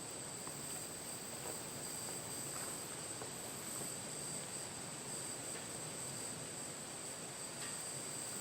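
Steady high-pitched chorus of insects, a continuous even trill.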